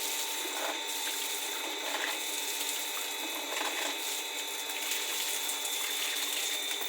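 Water running steadily from a pump's outlet as drinking water is collected.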